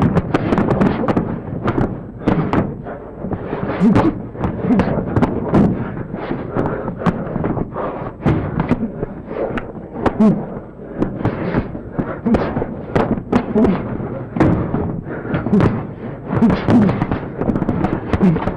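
A dense, irregular clatter of sharp knocks and clicks, several a second, with short low thuds in between.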